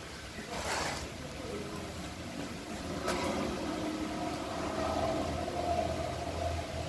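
A motor vehicle's engine running, growing louder over the last few seconds, with a short rushing noise about half a second in and a click about three seconds in.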